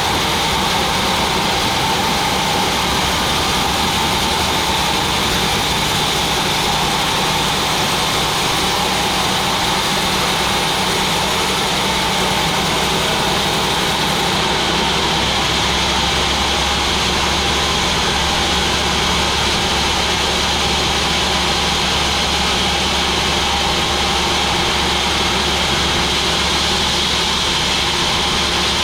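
Sawmill machinery running steadily, a loud continuous mechanical drone with no pauses or breaks.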